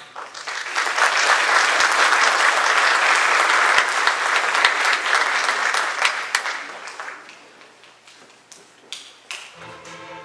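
Audience applauding, building about a second in and dying away to a few scattered claps; music starts again near the end.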